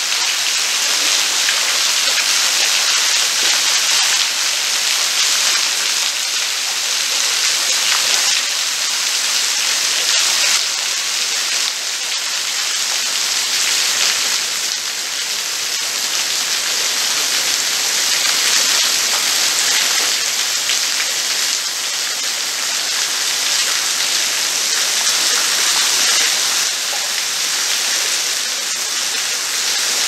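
Small waterfall falling in thin streams and drips onto rock and into a shallow pool, making a steady, rain-like splashing hiss.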